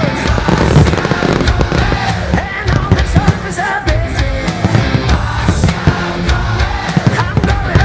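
Fireworks bursting and crackling over loud music with a heavy bass beat, the soundtrack of a pyromusical display.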